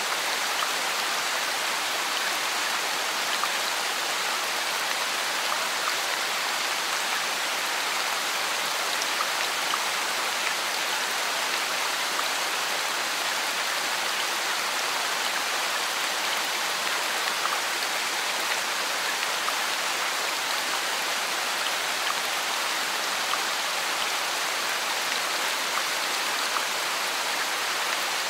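Steady rain falling: an even hiss with fine patter of drops, unchanging throughout.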